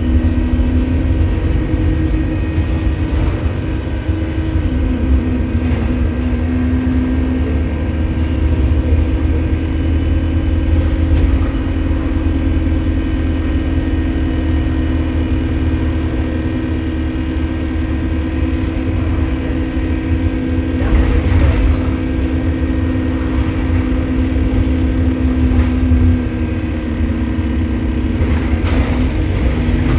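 A bus's engine running while the bus drives, heard on board: a steady low rumble with several held whining tones over it, swelling briefly twice in the second half. The whine is the strange noise that the title puts down to a leaking turbocharger.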